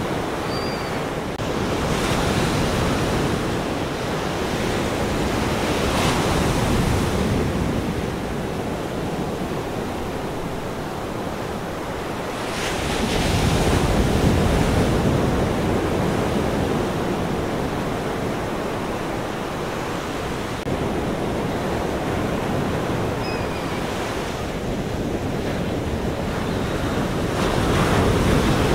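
Ocean surf: a continuous rush of waves that swells and ebbs as each wave breaks and washes in, every several seconds.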